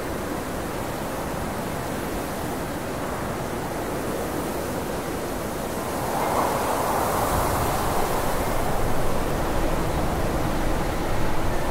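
Steady hiss-like noise with no distinct events, growing a little louder about six seconds in.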